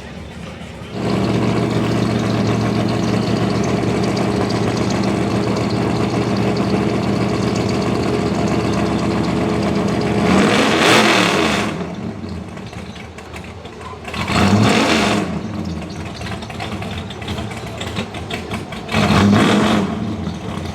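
A hot rod's engine running at a steady idle, which comes in loud about a second in, then revved in three short blips, each rising and falling in pitch.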